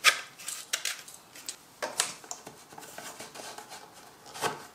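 Hard plastic clicks and knocks, a handful spread over a few seconds with quieter rubbing and handling in between: 3D-printed dust port adapters being pushed onto power tools' 39 mm dust ports to test the fit.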